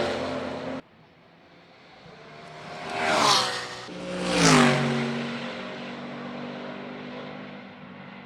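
A race car at full throttle cuts off sharply about a second in. Then two race cars pass close in quick succession, each engine rising to a peak and dropping in pitch as it goes by, and the second fades away down the track.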